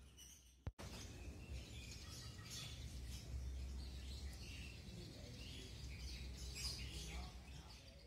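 Small birds chirping in short scattered calls over a steady low background rumble. The sound dips and cuts out for an instant just under a second in.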